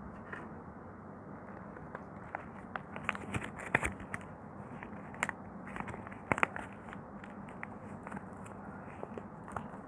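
Bar of soap being carved, with irregular crisp crackles and snaps as the blade breaks through it, the sharpest cracks about four and six and a half seconds in, over a steady background hiss.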